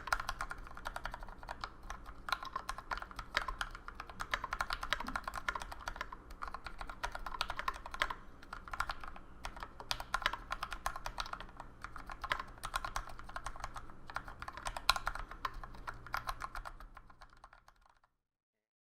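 Continuous fast typing on a Rama M60-A mechanical keyboard fitted with 62g Tangerine linear switches lubed with 205g0, with drawer liner inside the case. It is a dense stream of keystrokes that fades out about a second before the end.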